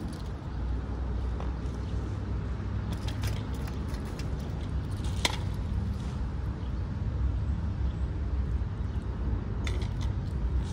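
Steady low outdoor rumble, growing slightly louder toward the end, with a few short clicks, the sharpest about five seconds in.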